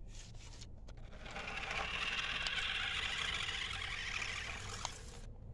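RC car's motor and gears whirring as it drives over grass, starting about a second in and cutting off about five seconds in. The car struggles on the grass: its body sits too low to the ground.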